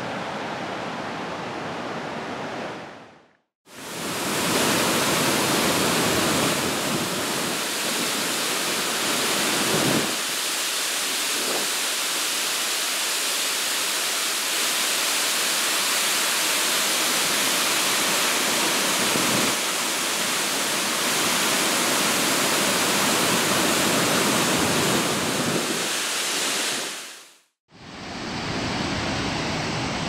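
Close-up rush of a large waterfall: a loud, steady roar of white water pouring over rock ledges. The sound cuts out abruptly for a moment near the start and again near the end.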